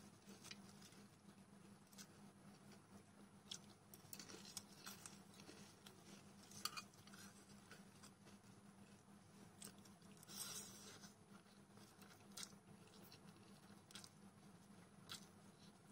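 Faint eating sounds: scattered light clicks of steel chopsticks against the plate and quiet chewing of instant noodles mixed with potato chips.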